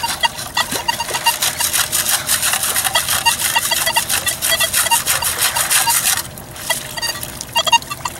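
Nokta Makro Legend metal detector giving many short, scattered beeps as its coil sweeps through shallow saltwater, over a dense crackle of moving water. Both break off for about half a second a little past the middle.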